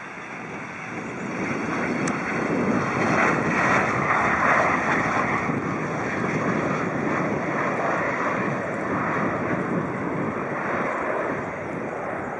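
Twin-engine business jet's turbofans during its landing roll, a broad rushing jet noise that swells over the first couple of seconds and then holds steady.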